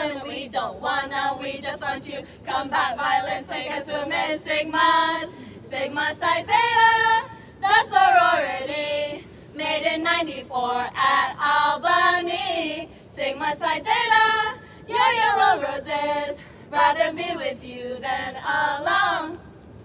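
A group of young women's voices singing a chant in unison, in short rhythmic phrases.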